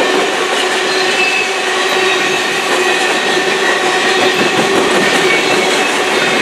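Covered hopper cars of a long freight train rolling past close by: a loud, steady rush of steel wheels on rail, with thin steady ringing tones over it.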